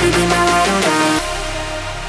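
Background electronic dance music: a melodic synth line over a heavy bass, which drops away to a sparser, quieter section a little past halfway.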